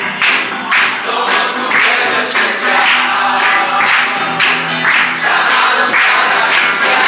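Upbeat Christian worship song: voices singing together over a band, with a steady beat of bright percussive strokes about twice a second.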